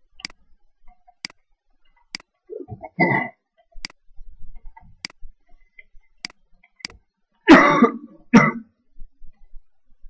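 A person coughing: a short throat-clearing cough about three seconds in, then two hard coughs near the end, the loudest sounds. Between them, a string of sharp computer mouse clicks about a second apart.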